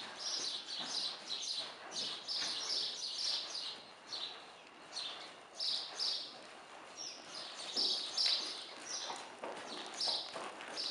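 Small birds chirping in quick, irregular runs of short high notes, with faint soft thuds of a horse's hooves walking on sand footing underneath.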